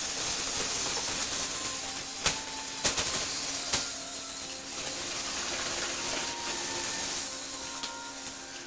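Electric motors and plastic gear trains of a Lego Technic tracked rover running as it drives and turns on its tracks: a steady whirring hiss with a few sharp clicks about two to four seconds in. The noise stops shortly before the end.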